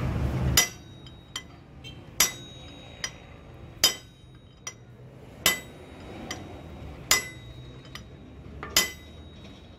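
Hammer striking a steel drift held against a gear on a truck gearbox shaft, driving the gear along the shaft during reassembly. Six sharp metallic strikes about a second and a half apart, each with a short ring, and a lighter tick between strikes.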